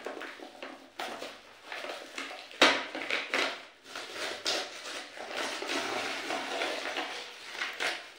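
Crinkling, rustling and tearing of the plastic-and-paper cover being peeled off the top of a plastic bucket, with one sharp crack about two and a half seconds in, the loudest sound.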